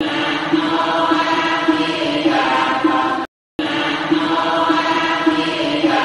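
Buddhist devotional chanting over musical backing: one short chanted phrase played as a loop, cutting to silence for a moment about halfway through and then starting over.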